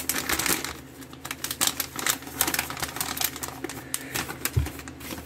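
Plastic flameless-ration-heater bag and food pouches crinkling and rustling as they are handled and packed, an irregular run of quick crackles.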